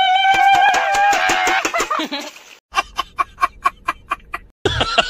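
A high, drawn-out vocal cry over the crackle of eggs frying in hot oil, then a man laughing loudly in quick, even bursts of about five a second.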